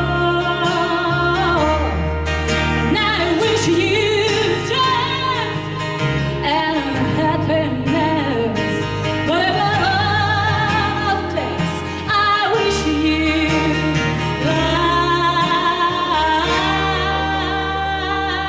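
Live country-style song by women singers, with more than one voice singing at once, over strummed acoustic guitar and steady low accompanying notes.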